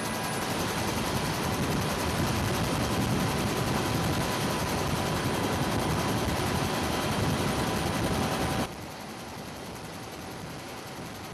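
Helicopter in flight heard from the open door-gunner position: steady rotor and engine noise with rushing wind. About three-quarters of the way through, the sound drops suddenly to a quieter level of the same kind.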